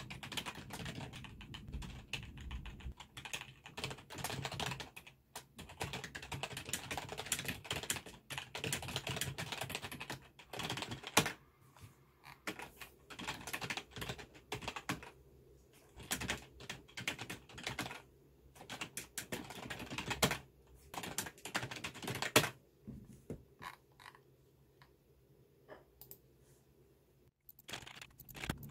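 Typing on a computer keyboard: quick runs of key clicks broken by short pauses, thinning to a few scattered keystrokes near the end.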